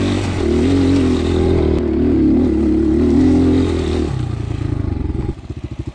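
Motor vehicle engine running steadily, dropping to a lower pitch about four seconds in, then slowing to a pulsing putter that fades near the end.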